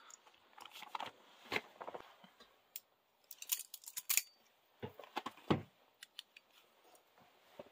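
A butterfly knife clicking open and shut, its metal handles snapping together, and its blade cutting into the plastic wrap of a sealed trading-card booster box. There are scattered sharp clicks and short scraping, crinkling cuts, with a longer stretch of cutting around the middle.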